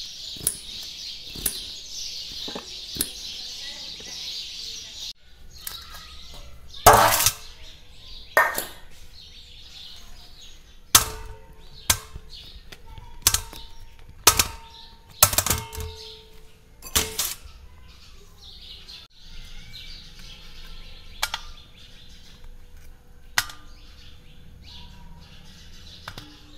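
A knife tapping out a regular chopping rhythm on an upturned stainless steel tumbler, then a series of sharp knocks on stainless steel plates, several leaving a short metallic ring, as guavas are set into a steel plate. Soft clicks of a knife cutting follow near the end.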